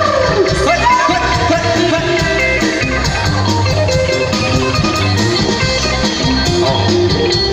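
Loud live band music: an instrumental stretch of a Thai pop song, with guitar over a steady beat.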